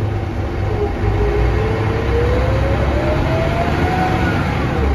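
Onboard a 1999 Mercedes-Benz O405NH bus: low engine drone under a whine from the geared drivetrain (ZF automatic gearbox and hub-reduction axle) that rises steadily in pitch as the bus gathers speed, then falls away near the end.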